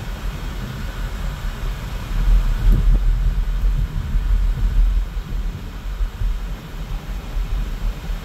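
Low rumble of road and engine noise inside the cabin of a moving car, louder for a few seconds starting about two seconds in.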